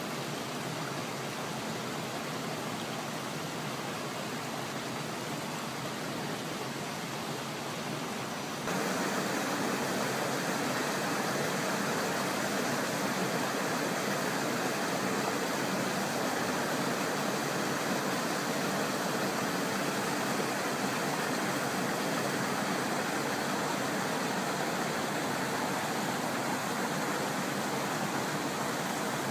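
Steady rush of river water flowing over rocks, an even hiss-like wash that steps up in loudness about nine seconds in.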